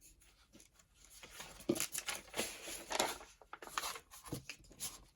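Sheets of tea-stained paper being handled and shuffled: irregular rustling with a few sharper crackles.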